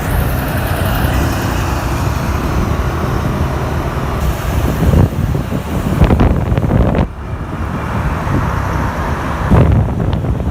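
Road traffic noise: motor vehicles running close by, with a dense low rumble that dips briefly about seven seconds in.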